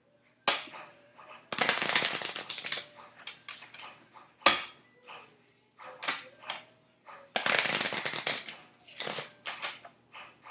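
Tarot cards being shuffled: two dense runs of rapid card clicks, about a second each, with single sharp snaps of cards between them.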